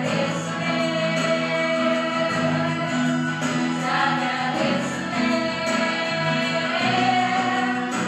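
Christian worship song: singing voices over musical accompaniment, going on without a break.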